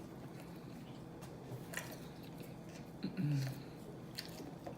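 A person chewing food close to the microphone: soft wet smacks and clicks of the mouth, with a short hum about three seconds in.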